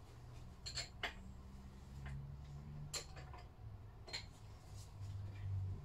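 Light metallic clicks and taps of hand tools and small parts being handled on a stripped stationary engine's crankcase: four or so sharp ticks spread over a few seconds, over a low hum.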